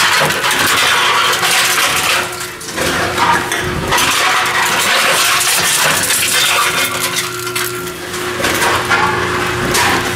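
Tomra T-53 reverse vending machine taking in aluminum cans: continuous metallic clattering and crunching as the cans go through the machine, over a steady machine hum.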